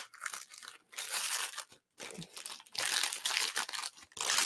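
Christmas wrapping paper being torn and crumpled off a beer can by hand, in several short bursts of rustling and tearing.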